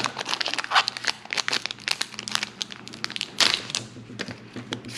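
Pokémon booster pack's foil wrapper crinkling as it is torn open by hand: a run of short, sharp crackles, loudest twice, about a second in and again past the three-second mark.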